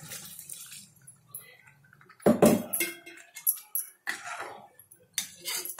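Water poured faintly into thick masala in an iron kadai, then a long steel ladle stirring it, with a loud clank about two seconds in and several more clinks and scrapes of the ladle against the pan.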